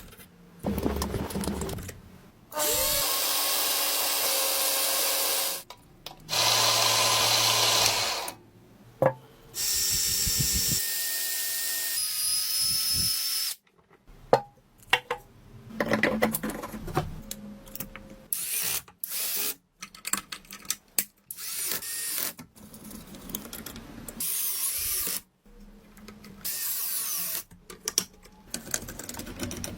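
A power tool running in three separate stretches of two to four seconds, each stopping abruptly, followed by many short clicks, knocks and brief bursts of tool noise.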